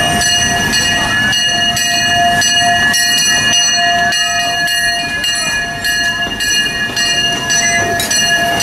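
Disneyland Railroad No. 2 'E.P. Ripley', a 4-4-0 steam locomotive, rolling slowly past with its coaches: a steady rumble of wheels and running gear over the rails, with a constant high whine running underneath.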